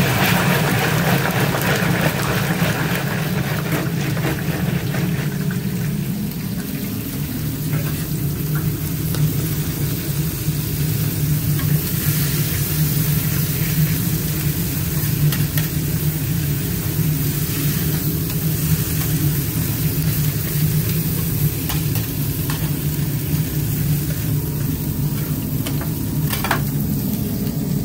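A basket of fries goes into hot oil in a deep fryer, hissing and bubbling loudest at the start and easing off over the next few seconds. After that, steel spatulas scrape now and then across a flat-top griddle, over a steady low hum.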